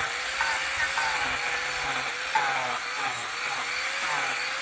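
Angle grinder running with a King Arthur's carbide shaping disc, smoothing and shaping the outside of a bishop wood root bowl: a steady motor whine that wavers a little as the disc bears on the wood, with rough scraping from the cutting.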